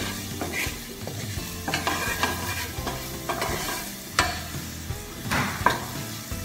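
Wooden spatula stirring sliced mushrooms and onion coated in flour in a stainless steel sauté pan, with a steady sizzle of frying. Irregular scrapes and taps of the spatula against the pan come every second or so.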